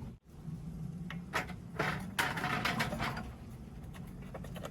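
Hands working small parts and wiring inside an electric stove: several short clicks and a stretch of scraping, rustling noise in the middle, over a steady low hum.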